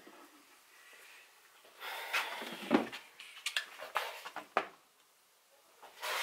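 Clatter of objects being handled and set down on a workbench: a rustle, then a knock just under three seconds in, followed by several light clicks and taps.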